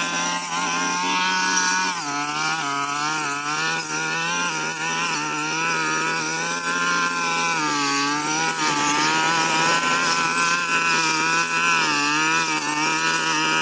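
Brush cutter engine running at high speed, its pitch sagging and recovering several times as the blade is loaded by thick overgrown brush.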